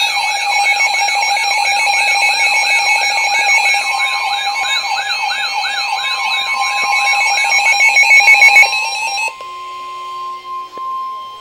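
A weather alert radio's electronic siren-like alarm, about two and a half quick pitch sweeps a second over steady beeping tones, which stops about nine seconds in. From about four seconds in, the steady NOAA Weather Radio 1050 Hz warning alarm tone sounds beneath it and then carries on alone.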